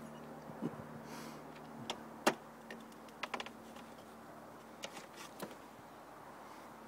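A few light, irregular clicks and knocks, the loudest about two seconds in and a quick cluster a second later, over a faint steady low hum.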